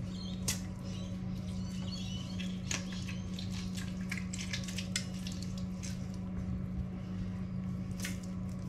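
Half a lemon squeezed by hand over a fish in a baking dish: juice dripping and the fruit squelching, heard as a scattered run of small wet ticks and pats over a steady low hum.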